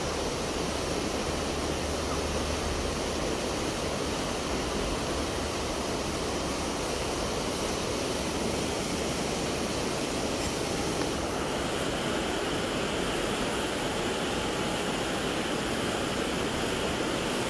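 Steady rushing of a fast glacial river, an even hiss without any pitch or rhythm.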